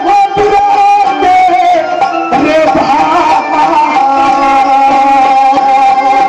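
Live Indian folk music: a melody instrument holding long, slightly wavering notes over hand-drum strokes.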